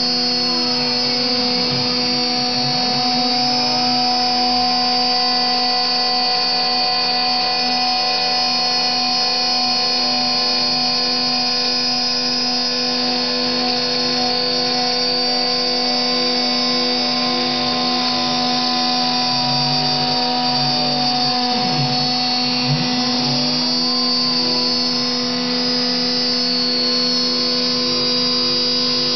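CNC mill's router-type spindle motor running with a steady whine while an end mill cuts aluminium plate, the milling hiss constant throughout. Over it the axis drive motors whine up and down in pitch as the cutter changes direction, near the start and again about two-thirds of the way through.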